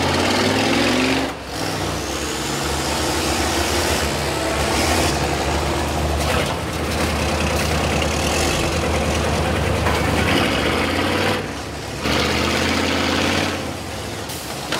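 School bus engines running hard and revving under load, their pitch rising about a second in and again near the end, with two brief drops when the throttle comes off.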